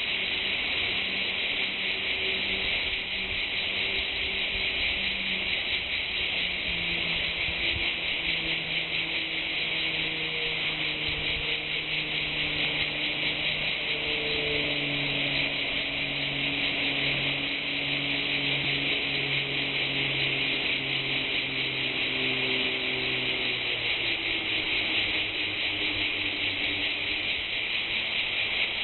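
Dense, unbroken chorus of many large insects singing in unison, a steady high-pitched buzzing hiss. Underneath runs a fainter low hum whose pitch shifts in slow steps.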